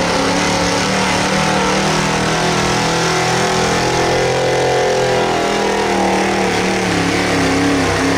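Small-block gasoline V8 of a 1970s Ford pickup pulling truck, running hard at high revs under full load as it drags a weight-transfer sled. The steady engine note swells a little in pitch midway and eases back.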